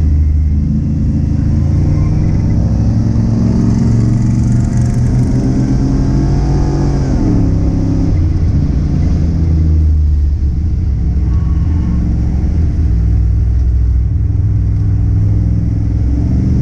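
Car engine running hard under acceleration, its pitch climbing for several seconds, then dropping sharply about seven seconds in as it eases off. After that it runs steadily at a lower pitch.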